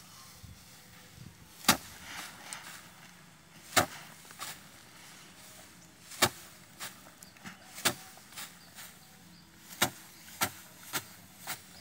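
Bundles of harvested rice stalks being beaten by hand against a wooden slatted threshing rack to knock the grain off. Sharp whacks every two seconds or so, with lighter knocks in between.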